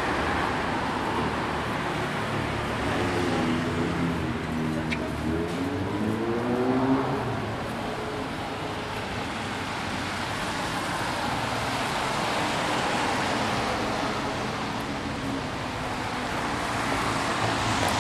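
Busy city street traffic: a steady wash of passing cars. One vehicle's engine pulls away, rising in pitch from about three to seven seconds in.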